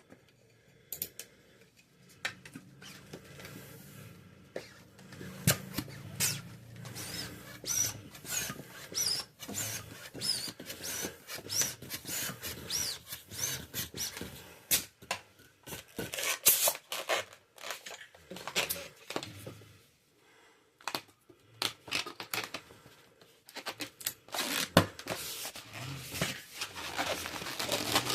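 Long latex twisting balloons being handled and rubbed, with rubber squeaks and a dense run of small clicks and crackles.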